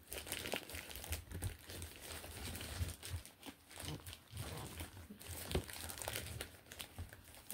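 Plastic courier mailer bag crinkling and crackling irregularly as hands grip and pull at it to tear it open; the plastic is tough and stretchy.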